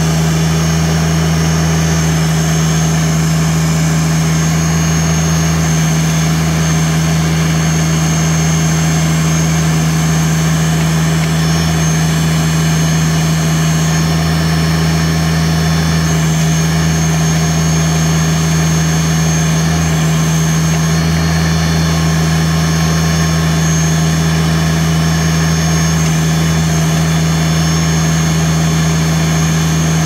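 LS MT1-series compact tractor's diesel engine running at a steady speed while its backhoe digs.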